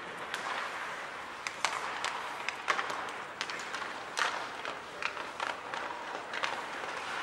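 Ice hockey play on a rink: irregular sharp clacks of sticks and puck, over a steady background of skates and arena noise.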